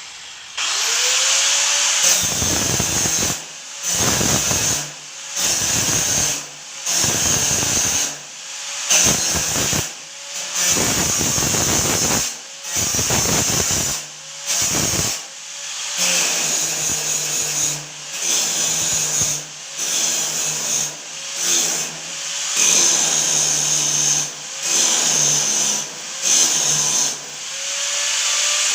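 Electric angle grinder working steel, pressed onto the metal and lifted off again over and over. Each contact gives about a second of loud grinding noise, and between contacts the motor keeps running and spins back up with a short rising whine.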